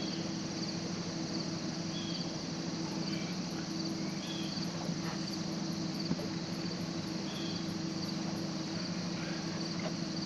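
Insects chirring steadily with a fast, even pulsing, over a steady low hum, with one faint click about six seconds in.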